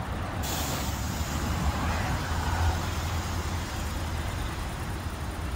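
Steady rumble of a car driving, engine and road noise together. A brighter hiss comes in suddenly about half a second in.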